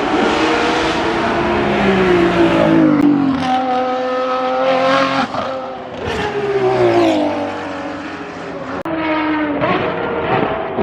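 Ferrari 599XX's V12 engine at high revs, its pitch falling in several steps as it downshifts and climbing again under acceleration.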